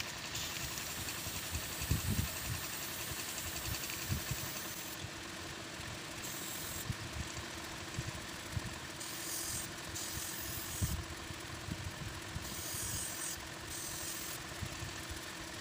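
An air compressor runs with a steady hum, while an airbrush hisses in several short spurts of a second or two as the trigger is pressed and released to spray paint through a stencil.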